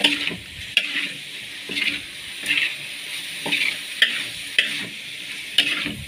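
Metal spatula scraping and tossing grated coconut with urap spice paste around a metal wok as it is dry-fried. The scrapes come at irregular intervals of about half a second to a second.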